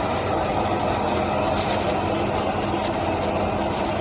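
Dazzini QST3000D hydraulic quarry chainsaw running steadily with its bar in a stone block, over the steady hum of the machine powering it.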